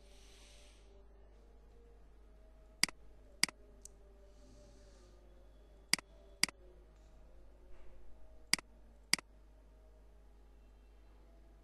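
Computer mouse buttons clicking: three pairs of sharp clicks, the two in each pair about half a second apart, over a faint steady room hum.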